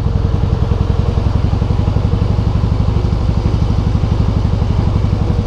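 Harley-Davidson Softail Heritage's Twin Cam 96 V-twin running at low revs through Screamin' Eagle exhausts, a fast, even beat of exhaust pulses with a faint steady whine above it. At this low rpm the owner hears a creak and feels a drag from the primary drive, which he takes for a fault there.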